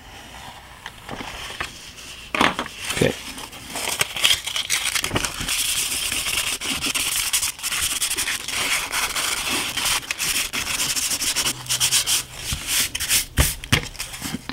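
220-grit sandpaper rubbed quickly back and forth over the back of a sheet of printed paper laid on chipboard, thinning the paper. The fast, scratchy strokes begin about two seconds in and keep on.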